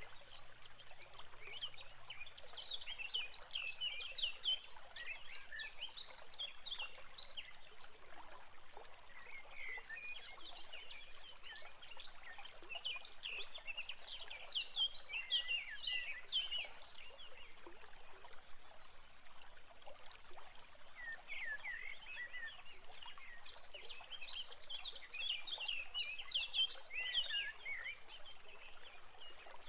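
Small birds twittering in three long bouts of rapid, high chirps over a faint steady hiss.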